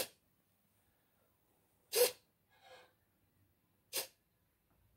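Three short buzzing whirs about two seconds apart, with a weaker one just after the second: the animatronic's small hobby servos (MG90-style micro servos) snapping the eyes from side to side.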